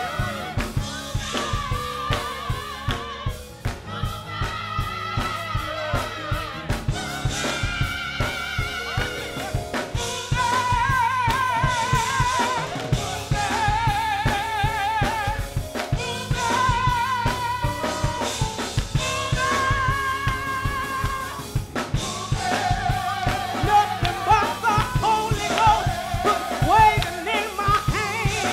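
Gospel choir singing, with wavering held notes, over a drum kit keeping a steady beat.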